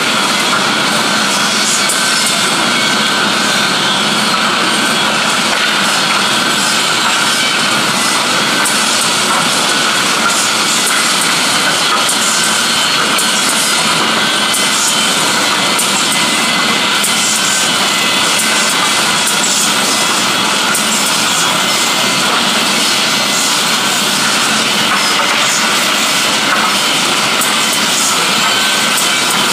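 Industrial woodworking machine running steadily: a loud, even noise with a faint constant high whine.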